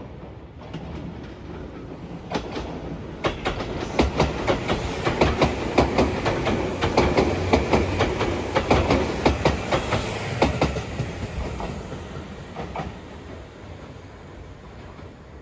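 Tobu 350-series limited express electric train passing through a station without stopping. Its running noise swells as it comes close, the wheels clatter over the rail joints in a quick run of clicks for several seconds, and then the sound fades as the train moves away.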